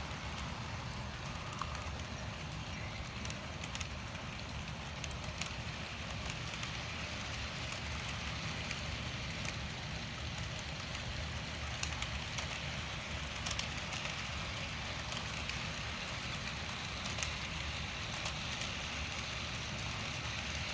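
HO scale Bachmann F9 A and B unit model diesel locomotives, running on DC, pulling a train of loaded flat cars along the track. It is a steady low rumble of motors and wheels, with a crackly hiss and scattered light clicks.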